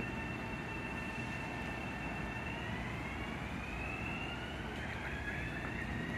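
Metro-North electric multiple-unit train's traction motors whining over a steady rumble. Steady high tones start gliding upward in pitch about halfway through, as the train picks up speed.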